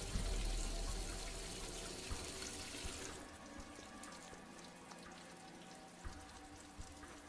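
Water running from a tap and splashing onto a thin metal rod. It cuts off about three seconds in and leaves a quieter background with a few soft knocks.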